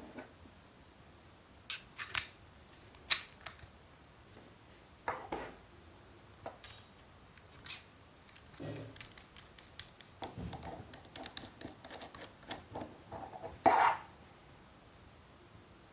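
Small hard parts being handled: irregular sharp clicks and short scrapes, the loudest about three seconds in and near the end, with a busier run of small clicks shortly before it.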